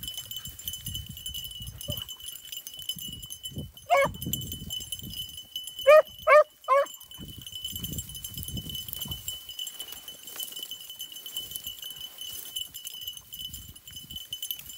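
Hunting beagles giving short, rising, high yelps: one about four seconds in, then three in quick succession around six seconds, over the low rustle of dogs pushing through dry grass and brush. A steady thin high-pitched tone runs underneath.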